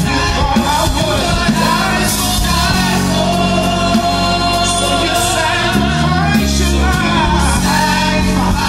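Gospel song sung by a lead singer with a small group of backing vocalists, over instrumental accompaniment with sustained low bass notes.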